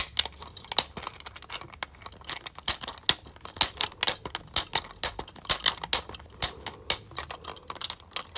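Loud and quiet buttons on a large 3D-printed plastic 12-in-1 fidget toy being pressed over and over, a run of sharp, irregular plastic clicks.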